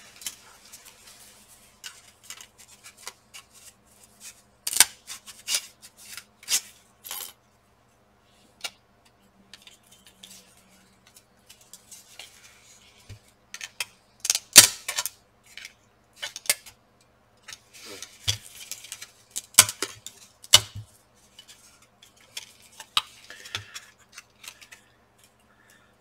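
Plastic fan shroud and metal heatsink of a graphics card cooler being handled and pried apart with a thin tool: scattered clicks, taps and knocks with short quiet gaps, the sharpest one about fifteen seconds in.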